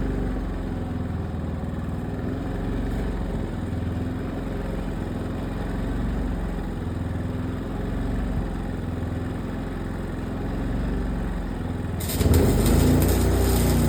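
An engine running steadily. About twelve seconds in, a louder crackling hiss starts, typical of an electric welding arc being struck.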